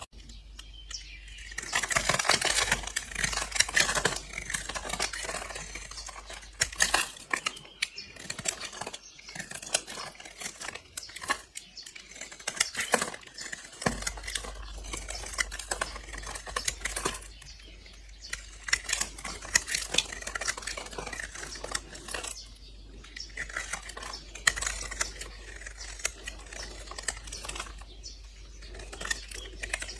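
A blade slicing through bars of soap: crunchy, with a dense run of crisp crackles and clicks, thickest about two seconds in.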